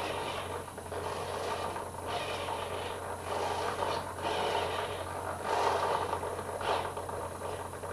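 Radio-control servo whirring as it drives a model's balsa aileron up and down through its push rod linkage. It comes in several short runs and stops near the end.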